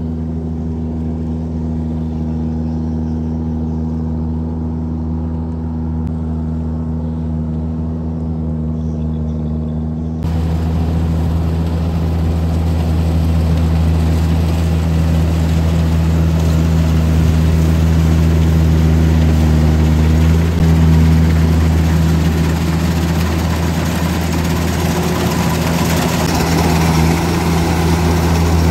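Kubota DC-93 rice combine harvester running steadily while cutting rice, its diesel engine giving a constant drone. About ten seconds in the sound gets louder and noisier as the machine is heard close up.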